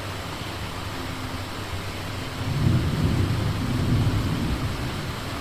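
Steady rain, with a low roll of thunder rumbling in about halfway through and dying away near the end.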